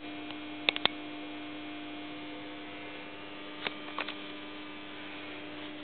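Steady electrical hum, with a few sharp clicks in two short clusters, about a second in and about four seconds in.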